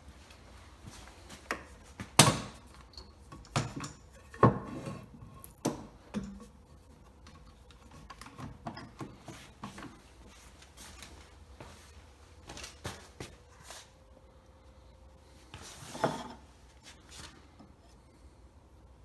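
Scattered wooden knocks and light scrapes as a black walnut workpiece is handled, turned over and set down on a wooden workbench, with a few louder knocks early on and another near the end as a chisel is set against the wood.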